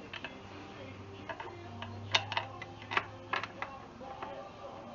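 A few scattered light clicks and knocks over a faint steady low hum.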